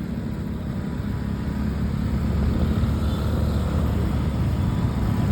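A heavy road vehicle's engine and tyres running as it draws near on the road, growing steadily louder.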